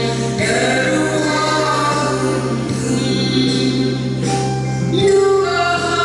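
A woman singing a Korean trot song into a microphone over an instrumental backing track, amplified through the stage sound system.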